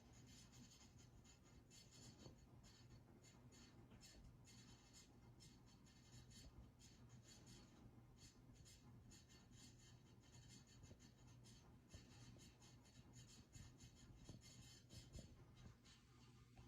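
A Belgian Malinois snoring faintly in its sleep.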